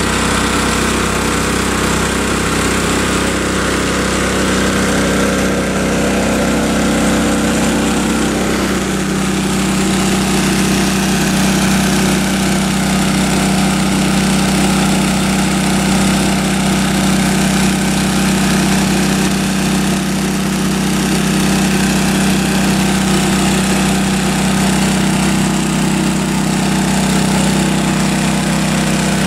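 Small gasoline engine of a 2-inch water pump, a high-banker-sized pump, running steadily and struggling to feed a dredge sluice box. Its tone changes slightly about nine seconds in.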